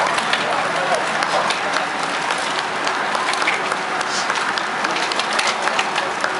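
Roadside spectators clapping steadily for the passing racing cyclists: a dense patter of many hands.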